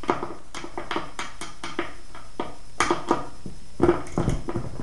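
A ratchet skate tool tightening skateboard bolts: a string of irregular metallic clicks and clinks, with a couple of louder knocks near the end.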